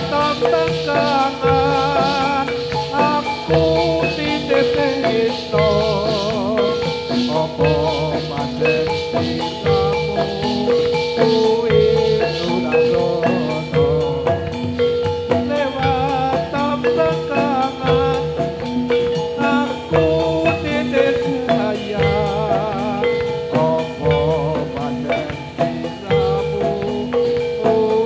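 Javanese gamelan-style music for a gedruk dance: metal mallet instruments play a steady repeating melody over hand-drum strokes.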